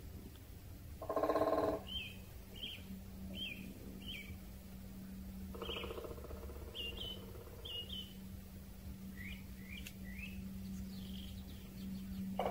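Wild birds singing: a string of short, high chirping notes, with a louder, lower harsh call about a second in and a fainter one around six seconds in.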